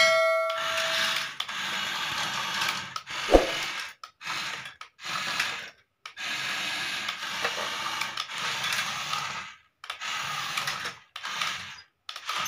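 Battery-powered toy excavator's motor and plastic gears whirring in runs of one to three seconds with short pauses between them, as it drives and pushes other plastic toys across a tile floor. A brief ringing tone sounds at the very start, and a single knock about a third of the way in.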